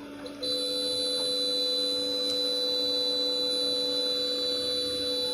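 A steady electronic buzzing tone starts about half a second in, holds evenly for nearly five seconds, then cuts off suddenly.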